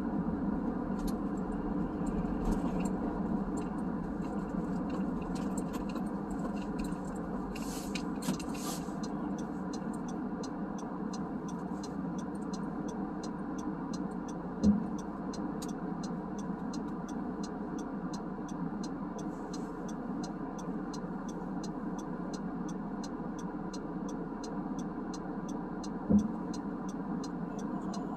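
Steady road and engine rumble inside a moving car's cabin. From about a third of the way in, a turn-signal indicator clicks about twice a second, and two sharp thumps come partway through and near the end.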